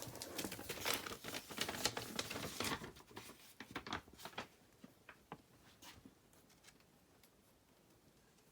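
Packaging being handled while a box is unpacked: dense rustling and crinkling for the first few seconds, thinning to a few scattered rustles and clicks, then going quiet about six seconds in.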